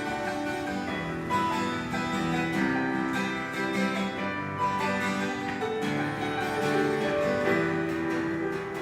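Guitar music: a guitar strumming and plucking chords in an instrumental passage.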